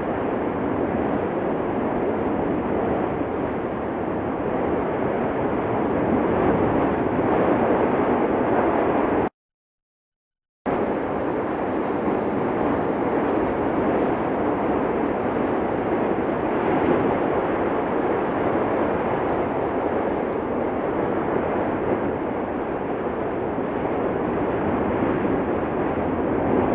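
Steady, noisy rumble of the erupting Cumbre Vieja volcano, with no distinct blasts. It cuts out to silence for about a second and a half roughly a third of the way in, then carries on the same.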